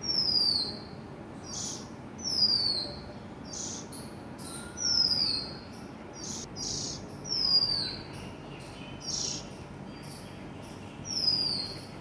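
Small garden birds calling: a clear, falling whistle repeated five times, about every two and a half seconds, with short rasping notes in between and faint, very high thin notes.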